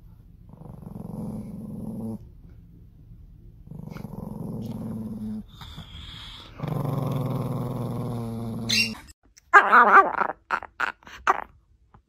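A small chihuahua-type dog growling in three long, low rumbles, each louder than the last, a warning growl with bared teeth at a cucumber held in front of its face. After a cut, several short, loud sounds from a second small dog near the end.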